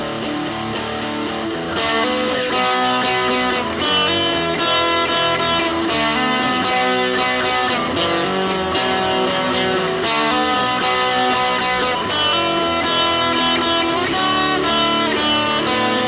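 Instrumental break in a home-recorded alt-folk song: guitars playing a steady run of notes with no singing. The music gets louder about two seconds in.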